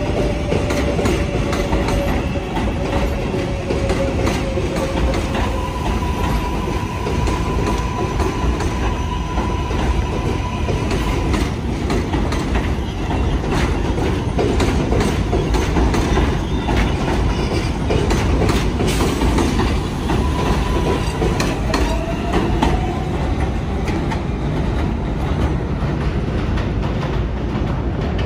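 New York City Subway L train running along the track, a steady rumble with a quick run of rail clacks. Thin whines come and go: a steady one about six seconds in and a rising one about twenty-two seconds in.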